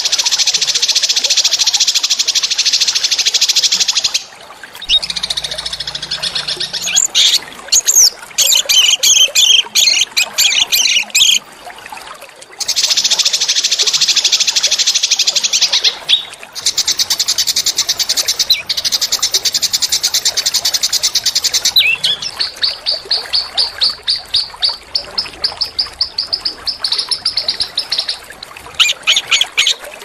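A small songbird singing long, dense, high trills that last several seconds each, with brief pauses between them. In the last third the trills give way to a run of quick repeated chirps. This is a recorded tutor song of the kind played to train caged white-rumped shamas (murai batu).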